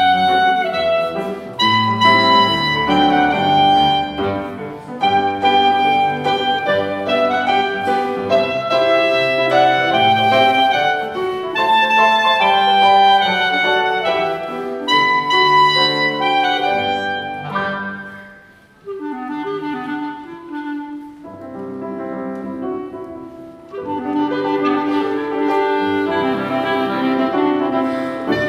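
A solo wind instrument playing a slow melody with piano accompaniment; about two-thirds through it drops to a quieter, lower passage, then fills out again.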